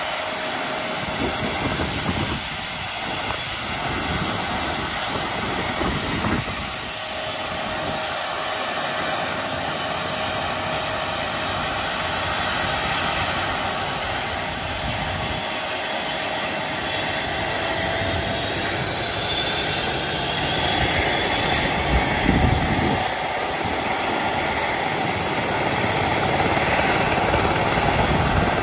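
A light turbine helicopter with a shrouded Fenestron tail fan runs on the ground before takeoff: a steady turbine whine over rotor noise. The whine climbs slowly in pitch over the second half as it spools up.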